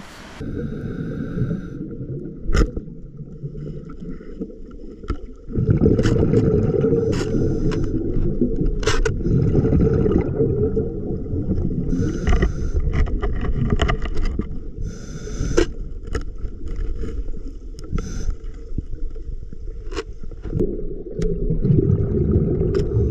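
Muffled underwater sound as picked up by a submerged camera: a dull low rumble of moving water with scattered sharp clicks and knocks, louder from about five seconds in.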